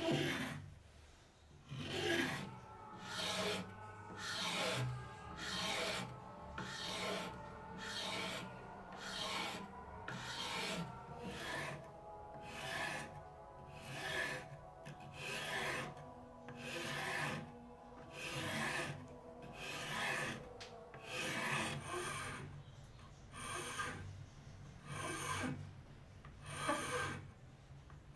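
Steel hand file rasping across the edge of a pine board held in a vise, in steady strokes about one a second.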